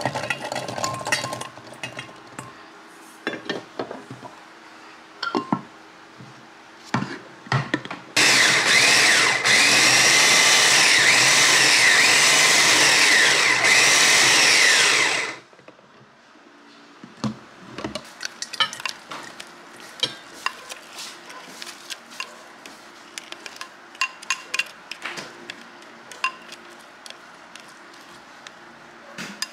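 Electric food chopper running for about seven seconds, chopping garlic and shallots, starting and stopping abruptly. Before it, shallots and garlic cloves clatter into its glass bowl; after it come scattered clinks and knocks as the chopped mix is tipped into a steel bowl.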